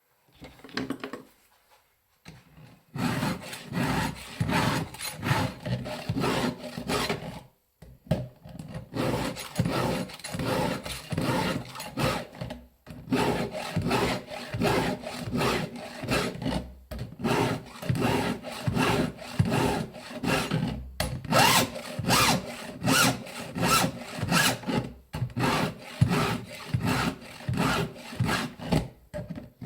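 Hand file strokes of a Stihl 2-in-1 filing guide sharpening the cutters of a semi-chisel chainsaw chain: rasping scrapes about two a second, in runs broken by short pauses, starting about three seconds in.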